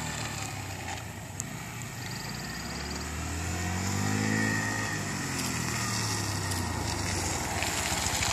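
Motorcycle engine running as the bike rides in toward the listener, its pitch rising and then falling over a few seconds in the middle as the throttle is worked. It settles into a steady low throb near the end.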